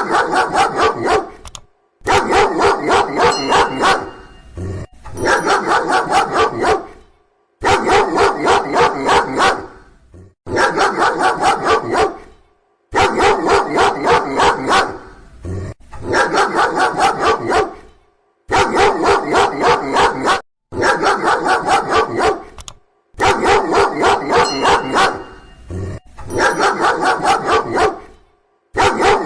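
A dog barking loudly in rapid runs of about two seconds, three or four barks a second, with short pauses between runs.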